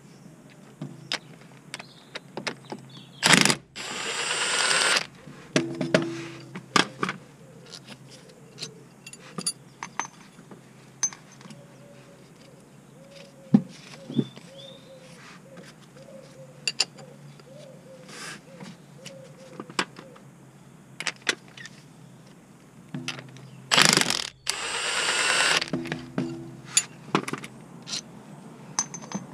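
Cordless impact wrench hammering at bolts on a car's gearbox. It runs in two bursts of about a second and a half each, a few seconds in and again near the end, with small metallic clinks of bolts and tools in between.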